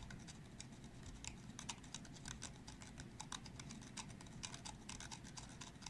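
Tip of a small 0.8 pentalobe screwdriver scraping an oxidized aluminum grounding pad inside a phone's back case: a faint run of irregular little scratches and ticks. The scraping is taking the oxidation off the pad to give the GPS antenna's contact pins a fresh surface.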